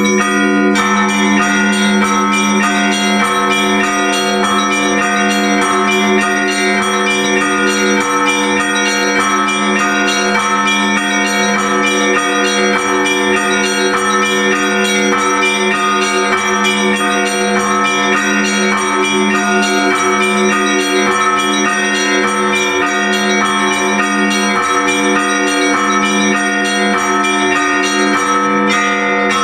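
Orthodox church bells rung together for the Divine Liturgy: rapid, rhythmic strikes on the smaller bells over the steady, sustained hum of a larger bell.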